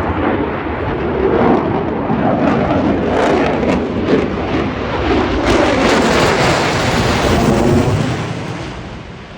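F-35 jet's Pratt & Whitney F135 turbofan passing overhead, super loud: a deep rumbling jet noise with rapid crackle that holds strong, then fades away about a second before the end.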